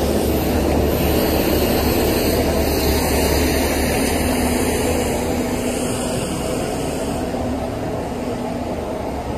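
Steady low rumble of city street traffic, easing off slightly near the end.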